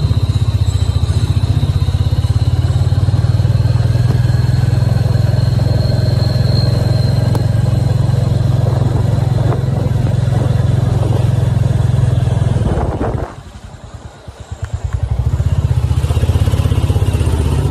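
Motorcycle engine running while riding, a steady low drone. About thirteen seconds in it drops much quieter for a couple of seconds, then rises again.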